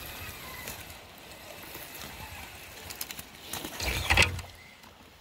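A hooked steelhead thrashing and splashing at the surface about four seconds in, over the steady rush of the river.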